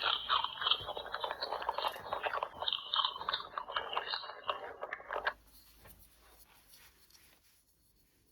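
Interactive toy rabbit's electronic chewing and eating sound effect from its small speaker, set off by holding the toy bottle to its mouth. It cuts off about five seconds in, leaving only faint scraping.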